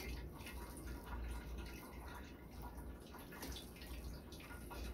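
A utensil stirring and turning cooked seasoned rice in a pot: faint irregular scraping and light clicks against the pan, over a low steady hum.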